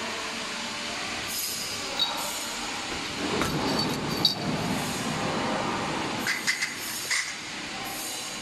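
Gummy production-line machinery running with a steady mechanical noise, broken by several short metallic clicks and clanks, a cluster of them about two thirds of the way in.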